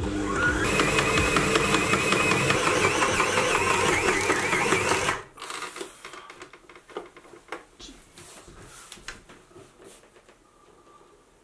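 Kenwood Chef XL Titanium stand mixer kneading an oversized bread dough of about 2.8 kg, over its 2.5 kg rating: the motor rises in pitch as the speed dial is turned, runs loudly with a fast rattle, then stops suddenly about five seconds in. The overloaded motor is overheating. Afterwards there are only a few faint clicks and knocks as the machine is handled.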